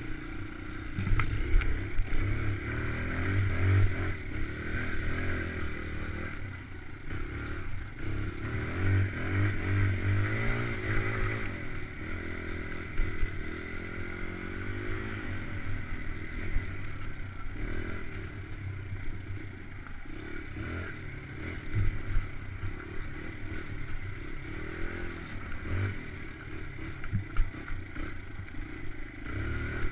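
Dirt bike engine running as it is ridden, its pitch rising and falling with the throttle, with occasional knocks as the bike goes over bumps.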